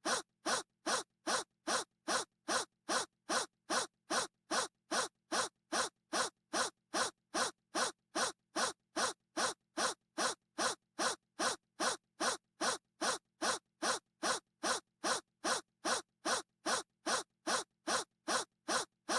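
A person's short gasp repeated over and over at a perfectly even pace, a little over two a second, each one cut off with silence before the next, like a looped clip.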